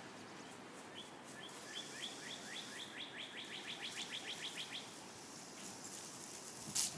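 A songbird singing one song: a series of short, high, downward-sweeping chirps that speed up as it goes. A sharp click near the end.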